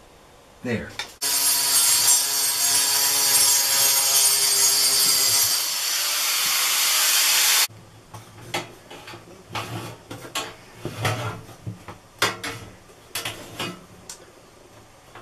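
A power tool cutting steadily for about six seconds, then cutting off suddenly. After it come short knocks and rubbing as a metal vent plate is handled and fitted into the wall opening.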